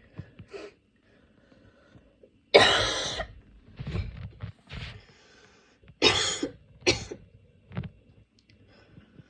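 A woman with a head cold coughing in a short fit: a strong cough about two and a half seconds in, two smaller ones after it, then another strong cough about six seconds in followed by two more, with breaths between.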